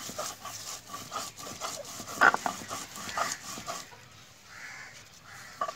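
Stone pestle rubbed back and forth on a flat stone grinding slab (shil-nora), crushing garlic, ginger and cumin into paste: rhythmic scraping strokes, about three a second, one louder about two seconds in, growing quieter near the end.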